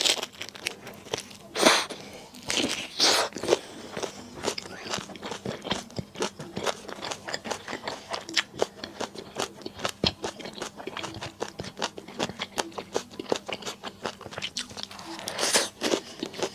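Close-miked eating sounds: a person biting and chewing, with a steady stream of small wet clicks and a few louder crunchy bites, about two seconds in, around three seconds in, and near the end.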